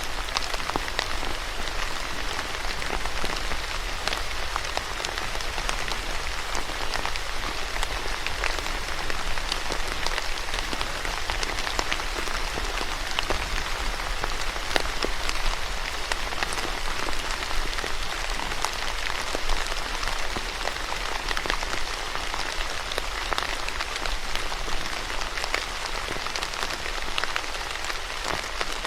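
Steady rainfall: a dense, even patter of raindrops hitting a surface, with many separate drop ticks and a low steady rumble underneath.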